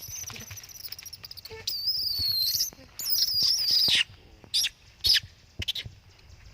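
Monkey screaming: shrill high-pitched calls that waver in pitch, two long ones of about a second each in the first half, then a few short shrieks.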